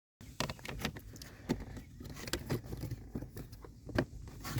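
Rapid, irregular clicks and knocks of hard plastic parts being handled and fitted as the cabin air filter housing behind a 2013 Honda Civic Si's glove box is reassembled.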